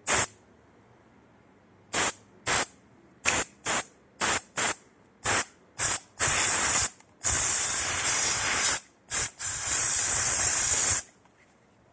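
Can of compressed air spraying in about ten short puffs, then three longer blasts of a second or more, typical of blowing dust out of a laptop's insides.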